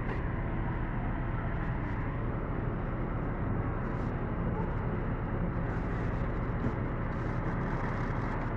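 Steady low rumble of fire trucks' engines running, with faint voices mixed in.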